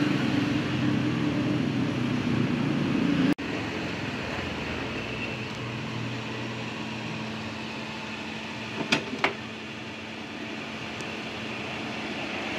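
Steady hum and hiss around a gas-fired egg-waffle iron, with two sharp metal clanks close together about nine seconds in as the iron is handled.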